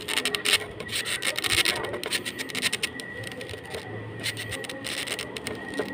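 Marker pen scratching over a styrofoam food box in short, irregular strokes while lettering is drawn.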